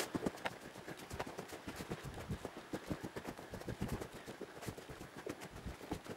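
Footsteps walking along a woodland dirt path: a steady run of soft, irregular thuds.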